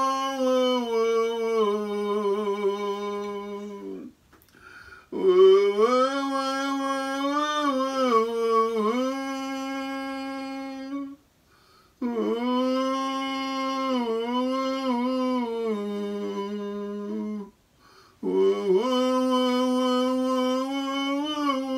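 A man's voice humming a slow, wordless melody into a microphone. It comes in long held phrases with short breath breaks between them, three breaks in all.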